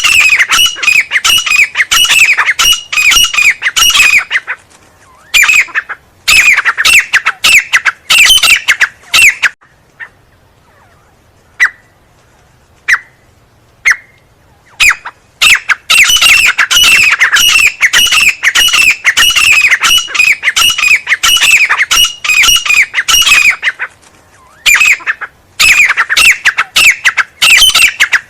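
Francolin (teetar) calling: fast runs of loud, sharp notes, each sliding downward, several a second. The runs are broken by pauses, the longest lasting about six seconds in the middle, with only a few single notes in it.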